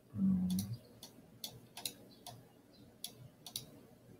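Computer mouse clicking, about seven sharp clicks at irregular intervals, as fields are placed and signers picked from a dropdown. A short low hum, the loudest sound, comes just after the start.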